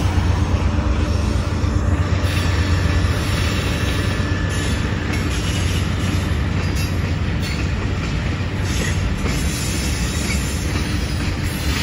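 Diesel freight locomotive passing close by, its engine giving a loud low hum for the first few seconds. The hum then gives way to the steady rolling noise of tank cars' wheels on the rails.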